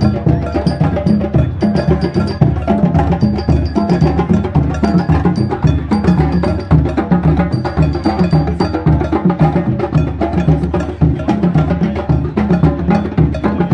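Drum circle: many hand drums played together in a fast, dense, steady rhythm. A high ringing note recurs on the beat through the first two-thirds.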